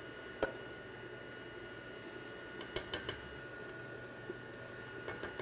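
Stand mixer with a paddle attachment running on low speed, a faint steady whine, as banana mixture is poured into the batter. A few light metallic clicks from the stainless steel bowls, once about half a second in and several around three seconds in.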